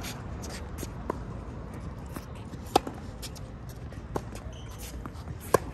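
Tennis rally: sharp pops of a racket striking the ball, about every one and a half seconds, with the two strongest hits about midway and near the end and fainter ones between.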